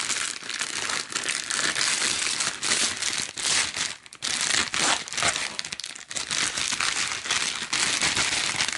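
Clear plastic packaging and bubble wrap crinkling as they are handled and pulled open, a continuous dense crackle with a short lull about four seconds in.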